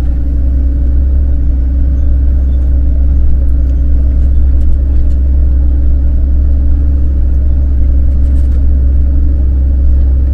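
Engine and road noise inside the cab of an Iveco Eurocargo 12-tonne truck driving slowly up a steep, rough gravel track: a loud, steady deep rumble with a constant hum over it.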